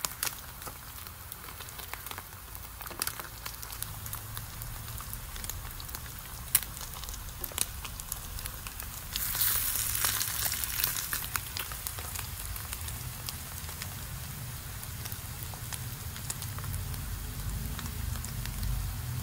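Slices of SPAM Lite luncheon meat sizzling and crackling in hot oil in a nonstick frying pan while a spatula turns them; the sizzle grows louder about nine seconds in.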